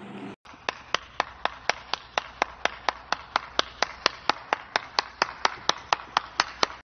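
One person clapping hands at a steady, even pace, about four claps a second, starting about half a second in.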